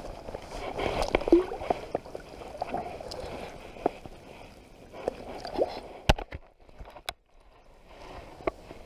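Water sloshing and splashing at the river's edge, with irregular knocks and clicks; two sharp clicks about six and seven seconds in, then a quieter stretch.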